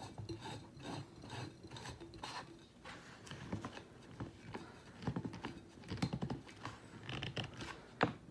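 Threaded PVC adapters being screwed together by hand, the plastic threads scraping and clicking irregularly, with small knocks of handling.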